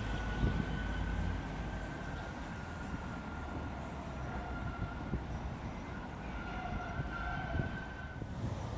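An Oslo SL95 tram's wheels squealing on a curve as it moves away, a steady high whine with a second, lower tone joining later, over the low rumble of the running gear that is strongest in the first second or so. The sound stops suddenly shortly before the end.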